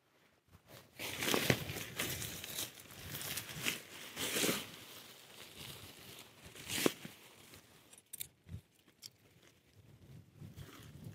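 Bushmen Ultralight 3x3 tarp fabric rustling and crinkling as it is handled and pulled open over the grass, with several sharp louder rustles in the first seven seconds, then quieter, scattered rustles.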